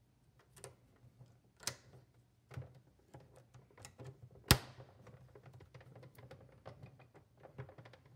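Fingers pressing and rubbing an adhesive badge onto the plastic case of a Tandy Color Computer 3: scattered light taps and clicks, with one sharp, much louder click about four and a half seconds in.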